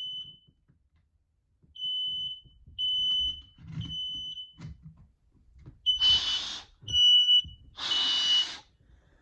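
Home smoke alarm sounding its high three-beep alarm pattern (three beeps about a second apart, then a pause), still going off after being set off by a test; it takes a while to silence. In the second half, three short loud bursts of hiss come about two seconds apart between the beeps.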